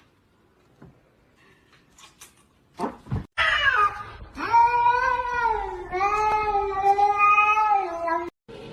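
A cat meowing in long drawn-out cries: after a couple of knocks about three seconds in, there is one falling cry, then two long held ones, each over a second long. The last one cuts off suddenly near the end.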